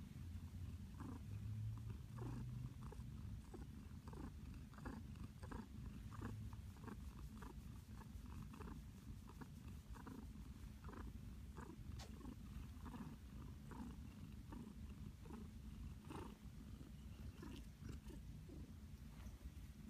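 Calico cat purring contentedly with a steady low rumble while being stroked.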